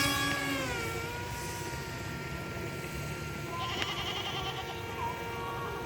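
Radio-controlled Su-37 model jet's motor whining. The whine drops in pitch over the first second, then holds steady and high.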